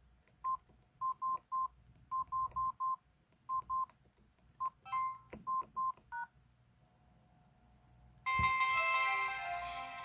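Samsung SGH-T219 flip phone's keypad tones: about fifteen short beeps of the same pitch, singly and in quick runs, as keys are pressed. About eight seconds in, the loudest sound, a short electronic jingle begins and starts to fade: the phone's power-off tune.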